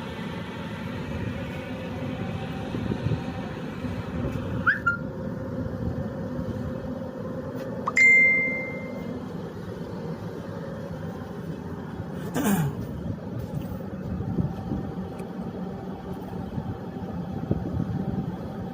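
Steady low drone of a ship's machinery running under way on sea trial. A short high beep sounds about eight seconds in, and a brief swish comes about four seconds later.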